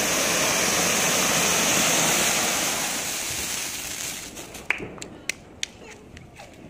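Fountain firework (anar) spraying sparks with a loud, steady hiss that dies away about four seconds in, followed by a few sharp cracks and pops.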